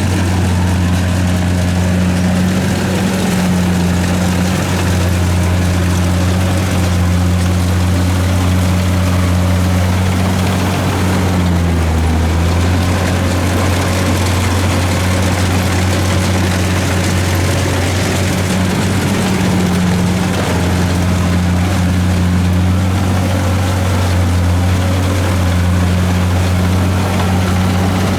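Kubota DC-70 combine harvester's diesel engine running steadily at working speed, with a brief dip in engine pitch about twelve seconds in.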